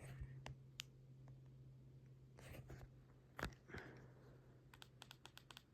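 Fanimation Covert ceiling fan running quietly at a middle speed: a faint steady low hum. A few scattered clicks, a knock about three and a half seconds in, and a quick run of clicks near the end.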